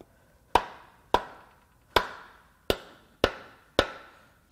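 Seven sharp knocks, one about every two-thirds of a second, as the end of a hammer handle strikes the aluminium piston crowns of a bare BMW B38 three-cylinder block. Each knock rings briefly.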